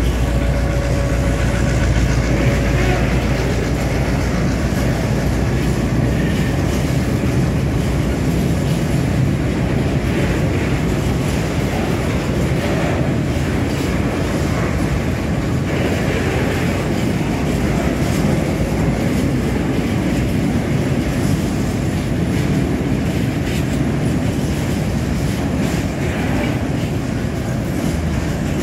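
Class 661 diesel locomotive's engine rumbling as it passes at the start, easing off within a few seconds. Then a freight train of empty tank wagons rolls past close by, its wheels clattering steadily over the rail joints.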